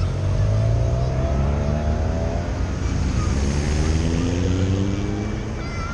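A motor vehicle's engine running loud as it passes close by, with a deep rumble. Its pitch sinks over the first couple of seconds, then climbs steadily until it fades near the end.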